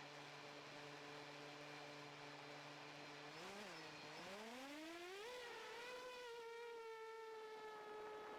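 FPV drone's brushless motors whining steadily at low idle, then, about three and a half seconds in, dipping briefly and rising smoothly in pitch as the throttle comes up, settling into a steady higher whine.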